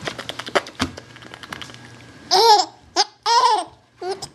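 A baby of nearly four months laughing in loud, high squealing bursts, about four of them in the second half. Before them comes a run of quick clicks.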